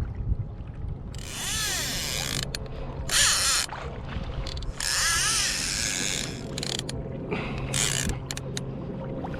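Fishing reel's clicker ratcheting in several bursts as line is pulled off the spool.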